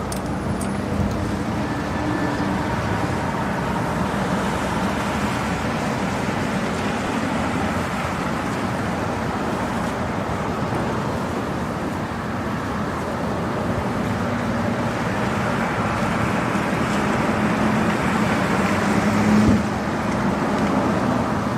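Steady road traffic noise, building a little toward the end, with one short knock near the end.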